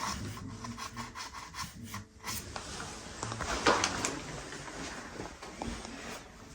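Hand tool scraping and rubbing against wood or drywall in irregular strokes, with scattered clicks and one louder stroke a little past the middle, fading toward the end.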